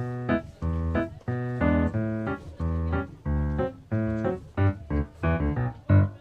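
Background music: a keyboard tune of short, rhythmic notes and chords.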